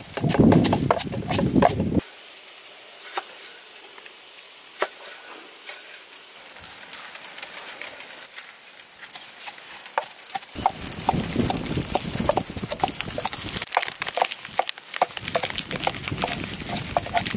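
Wind buffeting the microphone in gusts: a heavy low rumble that drops off about two seconds in and comes back around the middle, with scattered light clicks and taps throughout.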